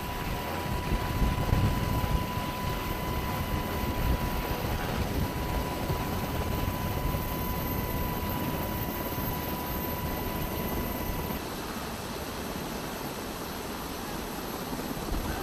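MH-60R Seahawk helicopter running close by: a steady, heavy rotor and turbine noise with a thin, steady whine over it. The whine drops out and the sound changes slightly about eleven seconds in.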